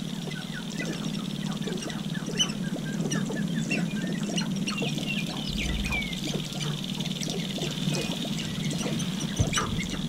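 A lek of displaying sharp-tailed grouse: many short clucks, cackles and chirps overlap, with a sharp click near the end, over a steady low drone.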